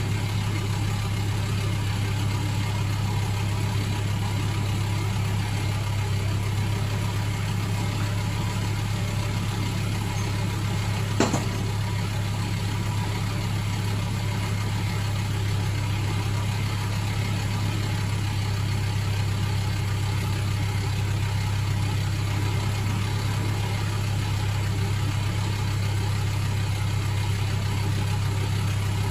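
Lorry engine idling steadily, with one sharp click about eleven seconds in.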